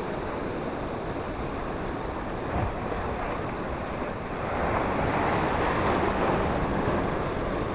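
Sea surf breaking and washing over rocks, with wind buffeting the microphone. A wave swells louder about halfway through and washes through for a couple of seconds.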